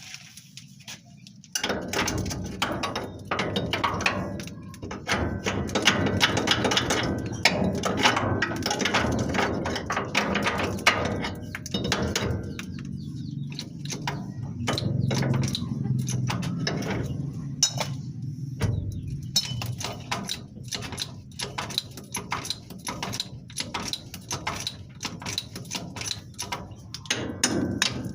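Irregular knocks and tapping of hand work on a spring, hammer strikes among them, starting about two seconds in.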